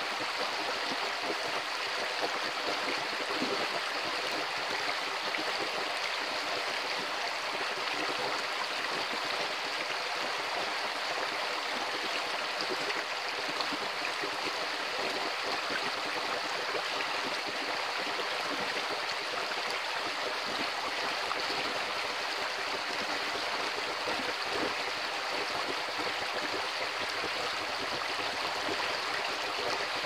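Shallow rocky creek flowing fast through a riffle: a steady, even rushing and splashing of water.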